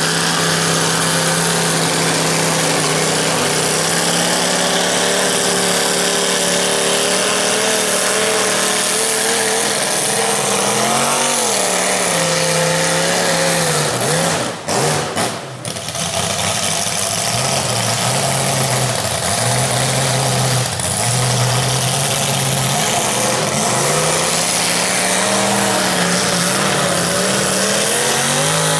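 Chevy S-10 mega mud truck's engine running hard through open exhaust stacks as it spins its V-tread paddle tires in deep mud, revving up and down. It backs off briefly about halfway through, then pulls steadily again.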